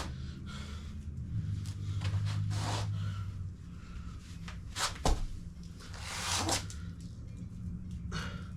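Knocks and handling noises over a steady low hum: a few short rushing sounds and one sharp knock about five seconds in.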